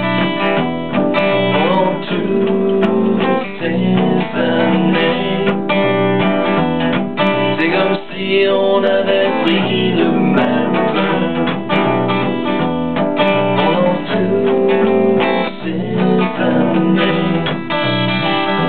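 Acoustic guitar strummed along with an electric bass, a song played live.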